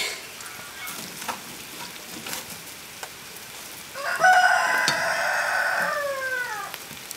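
A rooster crows once, a long held call starting about four seconds in that drops in pitch as it ends. Before it, a few light knocks as wood is pushed into the stove's firebox with tongs.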